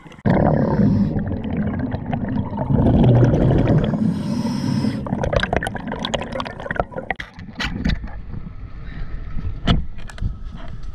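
Underwater gurgling and bubbling heard through an action camera's housing, with irregular clicks and knocks in the second half.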